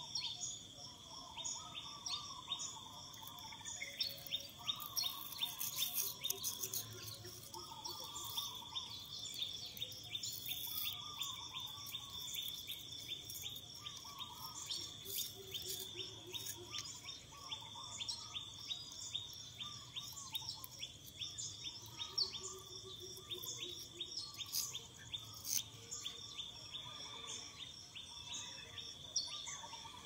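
Outdoor insect chorus: a steady high drone with rapid chirping throughout. Short bird calls come every couple of seconds.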